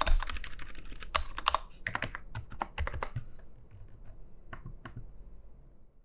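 Typing on a CIDOO ABM066 Alice-layout mechanical keyboard with pre-lubed Cidoo Silent Blue linear switches: a quick run of keystrokes that thins out and grows fainter after about three seconds.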